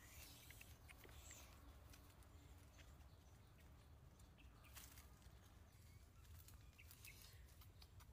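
Near silence: faint outdoor ambience with scattered small ticks and crackles.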